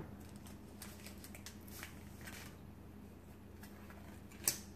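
Soft rustling and light clicks as a freshly cut foil booster pack wrapper and its trading cards are handled, with one sharp click near the end. A faint steady hum runs underneath.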